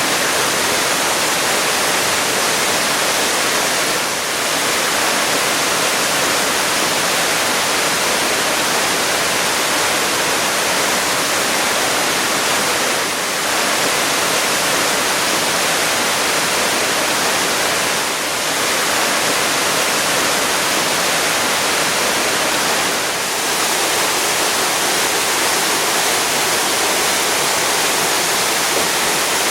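Waterfall: a loud, steady rush of falling water, dipping briefly in loudness about four times.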